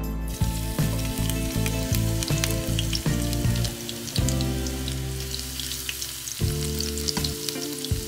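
Sliced shallots and garlic sizzling as they drop into hot oil in a nonstick frying pan and are stirred with a silicone spatula: a steady crackle of frying that starts as the slices hit the oil.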